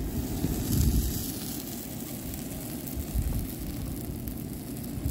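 Wind rumbling on the microphone in gusts, strongest about a second in and again about three seconds in. Under it is a light crackle and sizzle from a charcoal grill fire.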